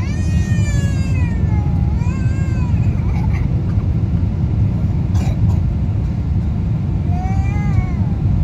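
Steady low roar of an airliner cabin during the descent, with a baby crying over it: long wails at the start, about two seconds in, and again near the end. A short click about five seconds in.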